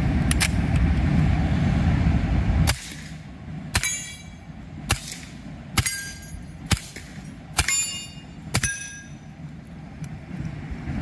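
A steady low rumble that cuts off about two and a half seconds in, then a suppressed Colt 1911 .45 ACP pistol with a Silencerco Octane 45 suppressor fired about seven times, roughly a second apart. Several shots are followed by a short metallic ring of a steel target plate being hit.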